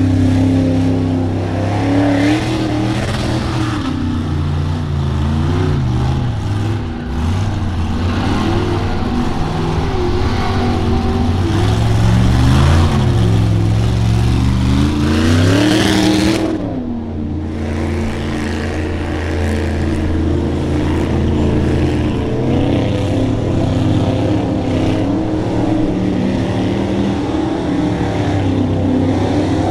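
Full-size Ford Bronco mega mud truck's engine revving hard under load as it churns through deep swamp mud, its pitch rising and falling again and again. It makes one long climb to a peak about sixteen seconds in, then eases off sharply.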